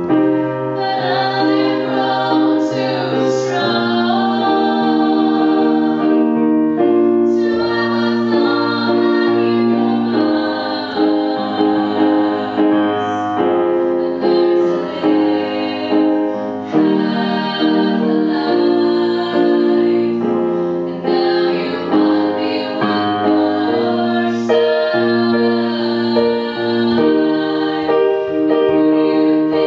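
Three young women singing a song together into one microphone, accompanied by an electronic keyboard playing steady chords.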